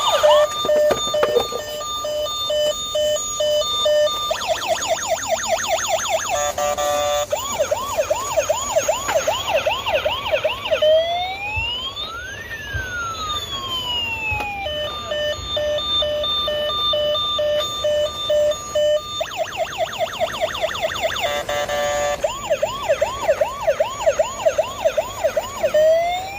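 A battery-powered toy ambulance's electronic siren cycling through its sounds: a steady pulsed beeping, a fast yelp of quick rising sweeps, then a slow wail that rises and falls. The cycle starts over about halfway through.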